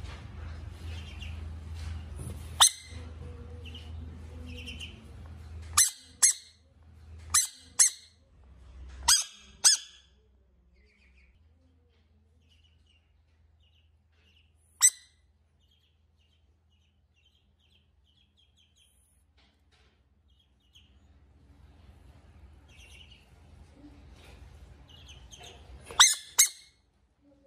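Ducklings peeping faintly, broken by sharp clicks or taps: a run of them in the first ten seconds, one in the middle and a quick pair near the end.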